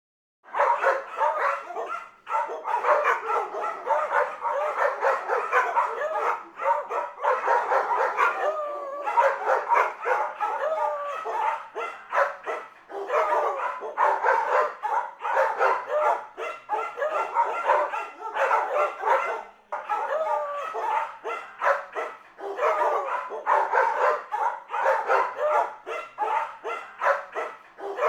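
Dog barking and yipping in quick, unbroken succession, starting suddenly about half a second in, with brief lulls around two seconds and twenty seconds in.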